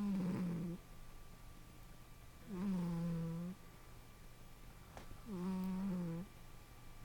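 Sleeping domestic cat snoring: three pitched snores, each about a second long, coming roughly every two and a half to three seconds.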